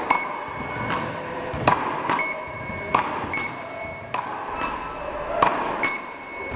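A rally with beach paddle rackets (ρακέτες): a ball struck back and forth, a sharp hit about every 1.3 seconds, five or so in all, echoing in a large hall. Several hits are followed by a short steady electronic beep from the measuring machine that scores the rally.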